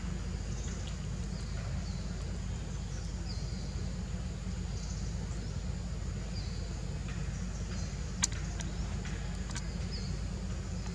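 Outdoor ambience: a steady low rumble with faint, short high chirps now and then, and a single sharp click about eight seconds in.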